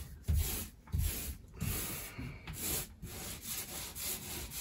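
Small paint roller being worked up and down a painted cabin wall, a rubbing, swishing sound in repeated back-and-forth strokes.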